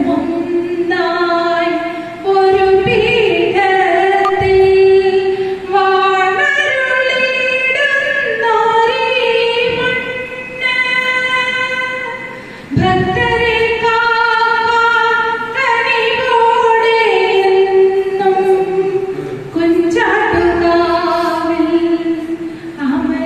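A woman singing unaccompanied into a microphone, holding long notes in a slow melody that steps up and down, with short breaths between phrases every few seconds.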